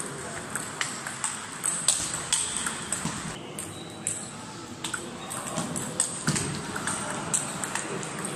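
Table tennis ball clicking back and forth off rackets and the table in quick rallies, with a short break about a third of the way in, over background chatter.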